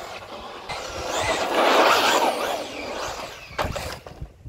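Traxxas Rustler 4x4 electric RC car driving on asphalt: the motor's whine rises and falls in pitch with the throttle over tyre noise, loudest about two seconds in, then fading, with a few sharp clicks near the end.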